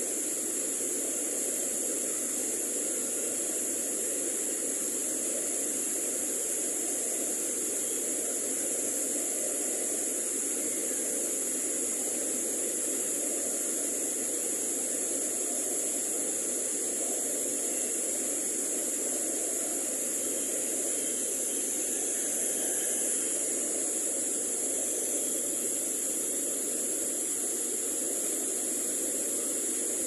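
Mountain waterfall cascading over rocks: a steady, unbroken rush of water with a constant high hiss above it.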